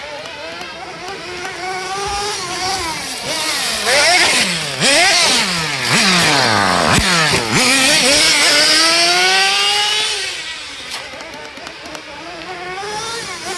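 Kyosho Nitro Tracker RC truck's small nitro engine revving up and down, its pitch repeatedly rising and falling with the throttle. It is loudest in the middle as the truck comes close, with several sharp drops and rising sweeps in pitch.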